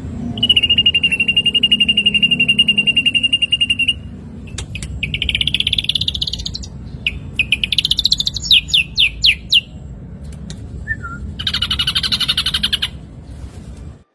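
Ashy drongo singing a varied song: a long rapid trill for the first few seconds, then a buzzy phrase, a run of quick falling whistles, and a harsh rapid chatter near the end.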